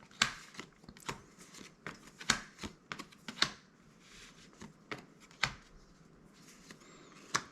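Magic: The Gathering cards from a set booster being flipped through and slid against each other: soft rustling broken by irregular sharp flicks, a few of them louder than the rest.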